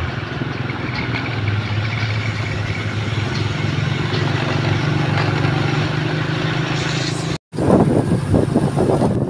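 Combine harvester engine running steadily. About seven and a half seconds in, a cut brings rougher, gusting noise, like wind on the microphone, over the machinery.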